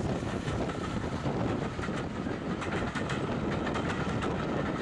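Passenger coaches of a steam-hauled train rolling past on jointed track, a steady rumble of wheels on rail with rapid sharp clicks as the wheels cross the rail joints, more of them in the second half.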